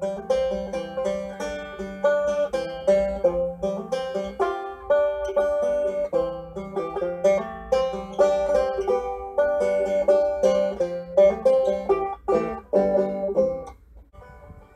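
Banjo played without singing: a steady run of plucked notes that stops about a second before the end.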